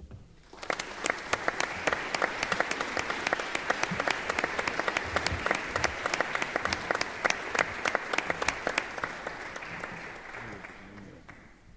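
Audience applauding: a dense patter of claps that starts about half a second in and dies away over the last couple of seconds.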